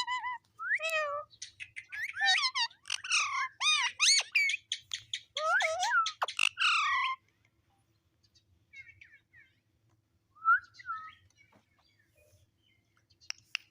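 Parrot chattering and whistling: a quick run of gliding, squeaky calls for about seven seconds, then only a few faint short calls.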